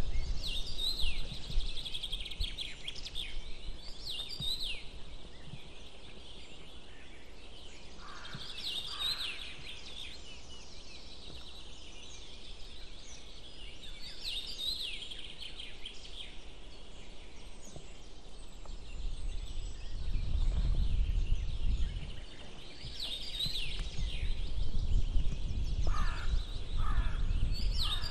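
Birds calling outdoors: short clusters of high, quickly falling chirps every few seconds, with a pair of lower calls about eight seconds in and again near the end. Wind rumbles on the microphone in the second half.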